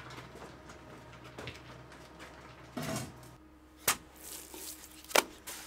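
A steel trowel scraping and knocking against a metal wheelbarrow as lime mortar is scooped out, with two sharp clanks in the second half.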